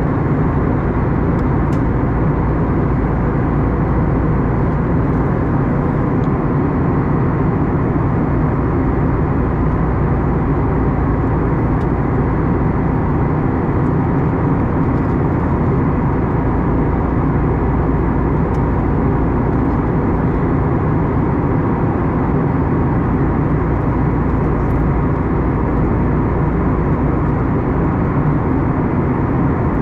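Steady cabin roar of an Airbus A321neo in flight, engine and airflow noise heard from inside the passenger cabin, with a faint steady hum running through it.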